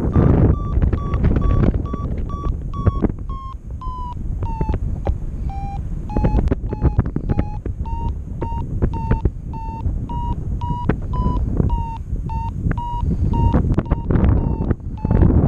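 Paragliding variometer beeping in a regular train, about two to three beeps a second. Its pitch drops around the middle and then rises again. This is the climb tone, which signals rising air and varies in pitch with the rate of climb. Wind rushes on the microphone, strongest at the start and near the end.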